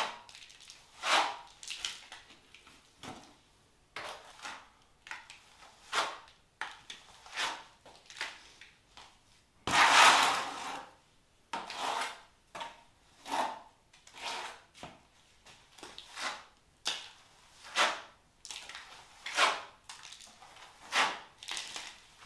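Trowel scraping wet render across a wall in repeated short strokes, about one every second or so, with one longer, louder stroke about ten seconds in.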